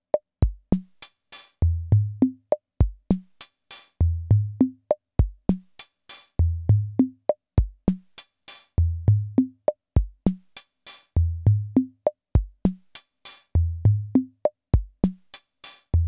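General MIDI drum sounds triggered over MIDI by an Arduino 8x8 gate sequencer, playing a looping eight-step rhythm pattern. The pattern has deep bass-drum thumps, pitched tom hits and short hi-hat-like ticks, and it repeats about every two and a half seconds at roughly 200 BPM.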